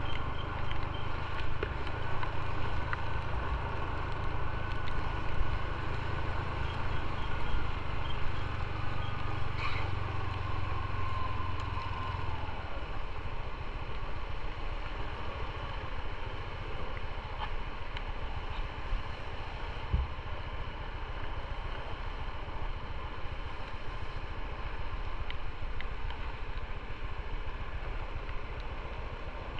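Motorcycle riding on a wet city road: its engine running under wind and tyre noise, with a falling whine as it eases off a little before halfway, then running more quietly at low speed.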